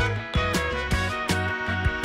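Instrumental music with a steady drum beat, a repeating bass line and sustained instrument tones.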